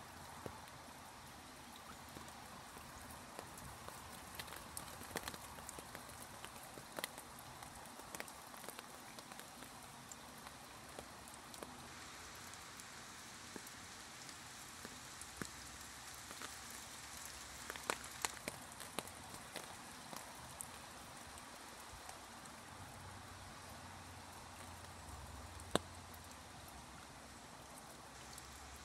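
Quiet, steady wash of flowing river water, with many scattered sharp taps and drips. The taps cluster around the middle, and the loudest comes a little before the end.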